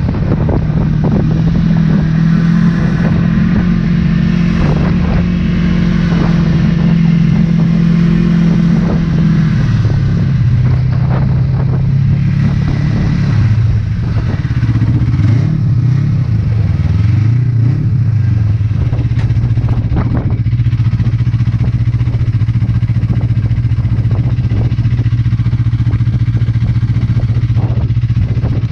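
Ski-Doo snowmobile engine running under way, with scattered short knocks. Its pitch drops about a third of the way through as it slows, wavers for a few seconds, then holds steady and lower.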